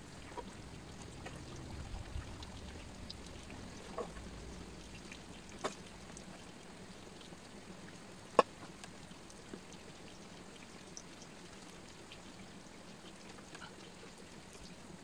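Light rain falling: a steady faint hiss with scattered drops tapping on surfaces, the sharpest tap about eight seconds in.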